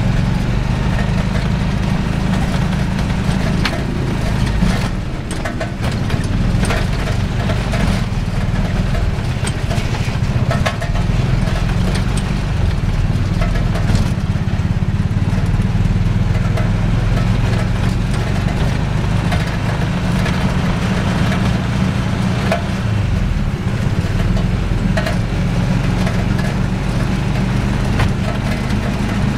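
Mototaxi's small motorcycle engine running steadily under way, heard from inside the passenger cab, with frequent short knocks and rattles. The engine eases off briefly about five seconds in, then picks up again.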